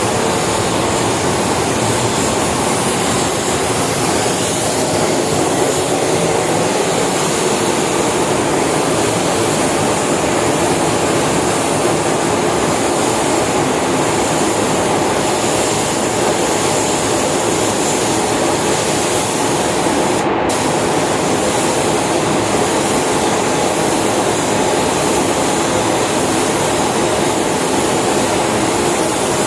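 Steady rushing air in a car paint spray booth: the booth's ventilation fans and the hiss of a compressed-air spray gun laying clear-coat lacquer on a car.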